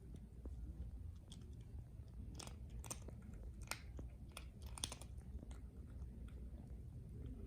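A street cat chewing and crunching food, with a scatter of small crunches bunched in the middle.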